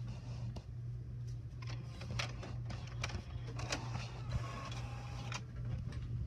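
HP OfficeJet 5740 inkjet printer running its mechanism: a steady low hum with a run of clicks and rattles in the middle.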